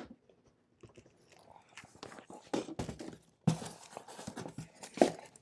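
A large cardboard shipping box being handled and set down on the floor. Cardboard rustles and scrapes among scattered knocks, loudest about three and a half seconds in, with a sharp knock near the end.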